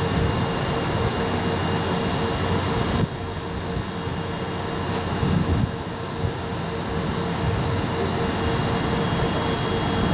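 Double-headed EF64 1000-series electric locomotives standing with their auxiliary machinery running: a steady hum and whir with a pulsing mid-pitched tone, dropping a little about three seconds in.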